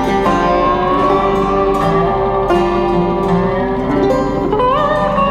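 Background music: a plucked-string tune, with one note sliding upward near the end.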